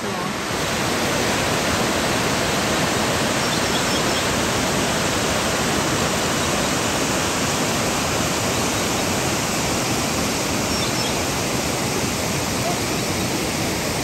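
Waterfall rushing: a steady, even noise of falling water with no breaks.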